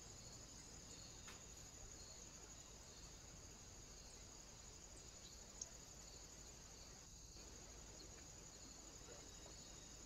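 Near silence: a faint, steady, high-pitched trill, with one small click a little over halfway through.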